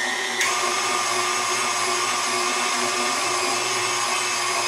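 KitchenAid stand mixer motor running steadily, driving the Fresh Prep slicer/shredder attachment as Gruyère cheese is pushed through the shredding cone. Its pitch shifts slightly about half a second in, then holds steady.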